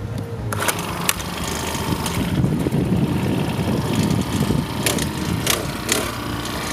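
Small gasoline engine of a General one-man earth auger running steadily while the auger bores a post hole, with a few sharp clicks scattered through.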